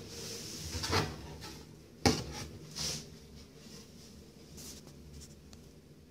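Bathroom vanity cabinet door being pulled open: a rustle about a second in, then a sharp click about two seconds in, the loudest sound, and a softer knock just after.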